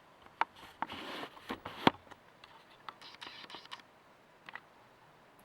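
Sharp clicks and light scraping from handling small parts of a disassembled Kwikset SmartKey lock, with the loudest click about two seconds in and only a few faint ticks after.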